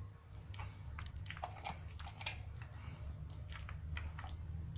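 Pekingese dog chewing and crunching a dry biscuit treat, with quiet irregular crunches.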